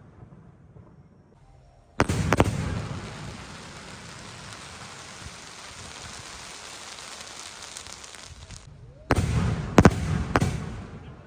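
Fireworks going off: a sudden burst with sharp bangs about two seconds in, then a steady hissing crackle for several seconds, then another burst of sharp bangs near the end.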